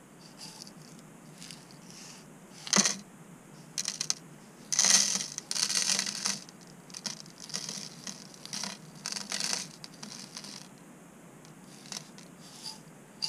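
Placer gold flakes pouring from a small glass vial into a plastic weigh boat: a gritty rattling hiss in several short pours, the loudest about five seconds in, with a sharp tick a little before three seconds and a few faint ticks near the end.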